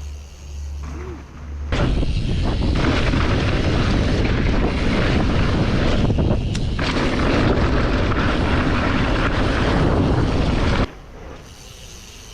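Loud, steady rushing and rumbling noise, like wind buffeting a microphone, that starts abruptly about two seconds in and cuts off suddenly near the end.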